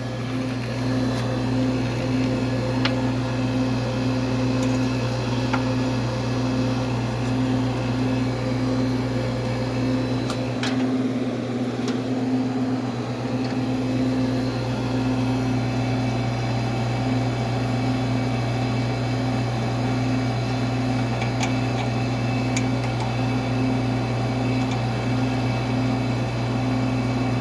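Air conditioning condensing unit running: a steady low hum with a faintly pulsing tone, and a few light clicks of handling over it.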